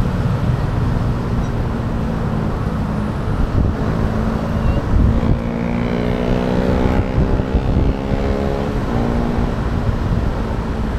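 Road traffic heard from a moving bicycle: wind rumble on the microphone over the running engines of motorcycles and cars close by. In the middle, one engine's pitch rises steadily as it speeds up.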